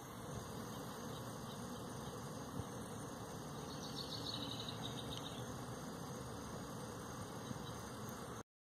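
Steady outdoor background hiss, with a brief high-pitched chirping about four seconds in. The sound cuts off suddenly near the end.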